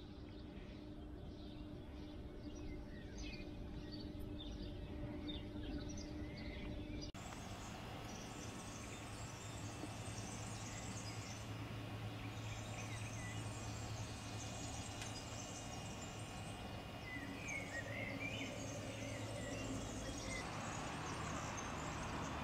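Outdoor ambience: birds chirping and insects trilling, over a low steady hum.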